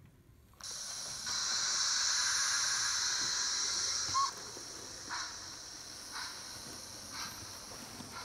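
Train Tech SFX Sound Capsule, a motion-triggered model-train sound generator, playing steam-locomotive sounds through its small speaker and rubber amplifying tube. A steady steam hiss starts just after the train moves and is loudest for about three seconds. After a brief high note it drops to a fainter hiss with soft puffs about once a second as the engine gets under way.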